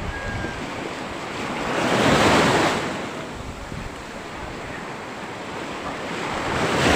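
Surf on a rough sea breaking and washing up the shore, swelling into a loud wash about two seconds in and again near the end.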